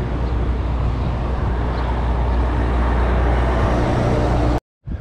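Steady road-traffic noise with a low motor-vehicle hum, heard while cycling beside a road, slowly getting louder. The sound cuts out abruptly for a moment near the end.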